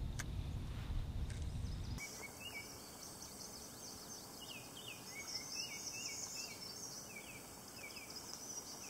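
A low rumble with a small click, then, from about two seconds in, distant songbirds singing over a calm lake: a run of short falling chirps with fainter, higher twittering above.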